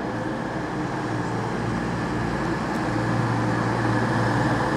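CrossCountry Class 220 Voyager diesel multiple unit running into the station, a steady rumble from its underfloor diesel engines and wheels on the rails, with a low hum, growing slowly louder as it approaches.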